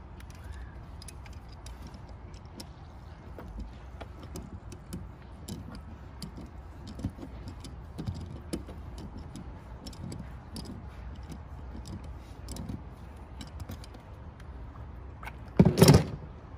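Small metallic clicks and ticks of water pump pliers working on the brass air vent of a frost-free hose bib as it is unscrewed, with one loud knock near the end.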